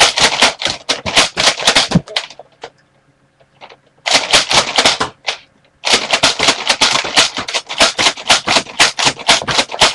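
Nerf dart blaster being slam-fired: the pump-action priming slide is worked rapidly with the trigger held, giving fast trains of sharp plastic clacks, about six a second, in three runs with short pauses after about two and five seconds.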